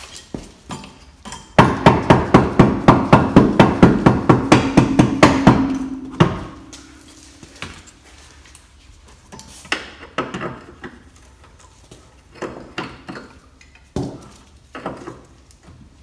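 Hammer striking metal on a car's rear suspension: a rapid run of even blows, about four a second for some four seconds, with a ringing tone under them. Scattered lighter knocks and clinks of tools follow.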